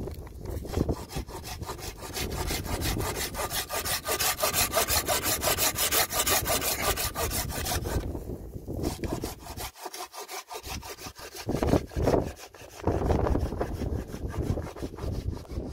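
Wood being cut with a hand saw in quick, even strokes, stopping briefly twice before carrying on.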